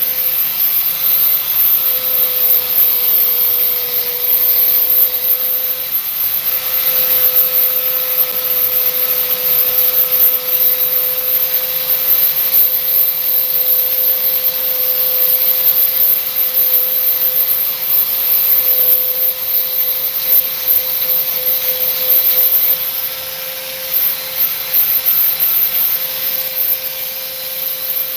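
Hand-held Bauer electric sander running steadily at speed, grinding down a fiberglass repair on a truck door. The motor's tone holds level throughout, and the grinding eases briefly a little before the end.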